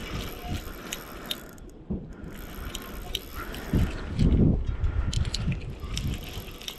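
A fishing reel being cranked to bring in a hooked fish, its gears giving an uneven ratcheting clicking. A louder low rumble of rod handling about four seconds in.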